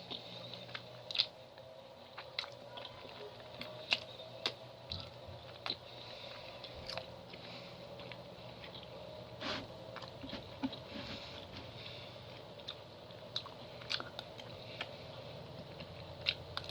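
A person eating close to the microphone: chewing and biting, with many short sharp clicks scattered throughout, over a faint steady hum.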